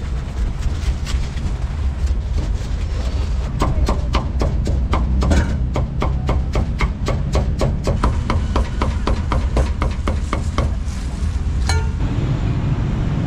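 Rapid run of sharp knocks, about four a second, starting a few seconds in and stopping near the end, over a steady low rumble.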